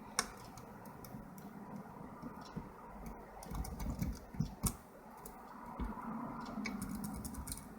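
Paper clip scraping and raking inside a lock's keyway, with scattered small metallic clicks and ticks as the pins are worked.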